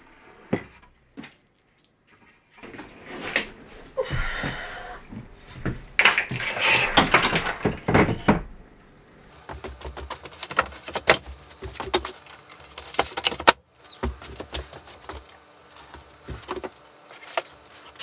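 Handling noises of a DIY CNC router's parts. First comes a scraping as the MDF wasteboard on its aluminium extrusion frame is slid across the bench, with knocks. Then comes a run of light metallic clicks and knocks as the gantry and its loose wiring are handled.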